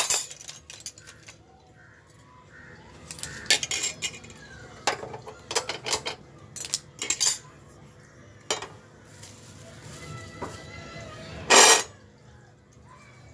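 Metal pots and utensils being handled and set down, with scattered clinks and clanks and one louder clatter near the end.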